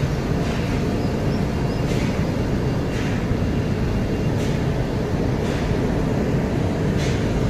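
Slow footsteps going down steel grating stairs, about one step every second, over a steady low rumble.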